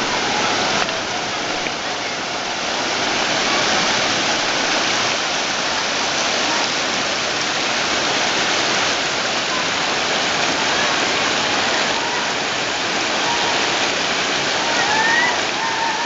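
Shallow mountain river rushing over a rocky bed: a steady, unbroken roar of running water.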